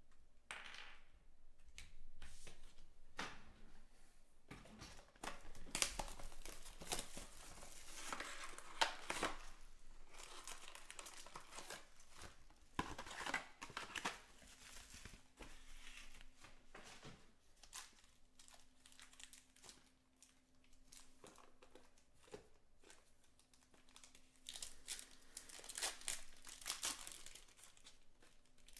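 Plastic shrink wrap and foil trading-card pack wrappers crinkling and tearing as a sealed box and its packs are ripped open, in irregular bursts.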